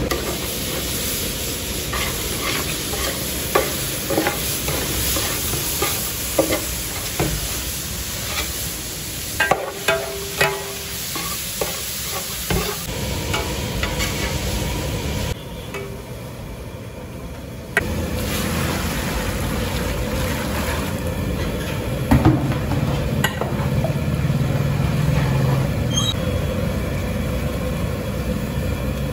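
Grated beetroot frying in a large metal cooking pot: a steady sizzle, with the ladle clinking and scraping against the pot as it is stirred.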